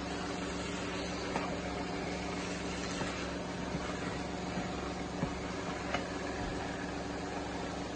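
A steady mechanical hum made of several fixed tones, with a few light knocks of a wooden spoon against a pan as rice is stirred.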